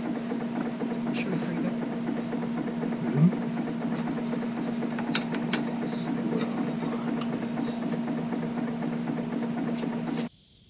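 A steady low machine hum, with scattered light clicks and taps of small metal parts being handled on a metal workbench and a short louder bump about three seconds in. The hum cuts off suddenly near the end.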